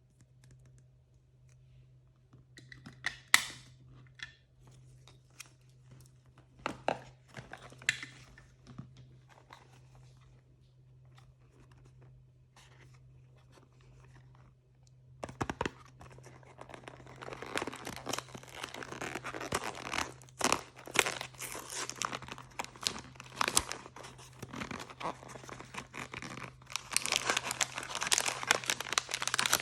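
Blind-bag packaging handled, torn open and crinkled by hand. There are scattered crackles and rustles at first, then continuous crinkling and tearing from about halfway.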